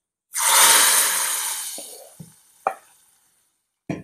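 Hot oil tempering with curry leaves and chillies poured into a pot of chickpea curry, sizzling loudly at once and dying away over about two seconds. A few clinks of the pan follow, and a wooden spoon starts stirring the curry at the very end.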